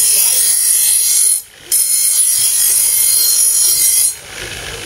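Steel knife blade pressed against the spinning wheel of a bench buffer, a loud steady hiss. It lifts off briefly about a second and a half in, goes back on, and comes off a little after four seconds, leaving the buffer motor running.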